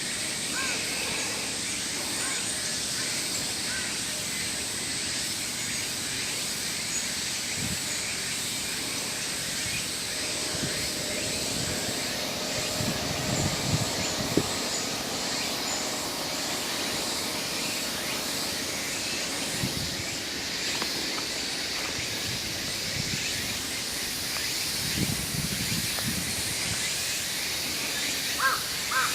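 Outdoor park ambience: a steady high hiss with small birds chirping faintly now and then, and a crow starting to caw repeatedly near the end.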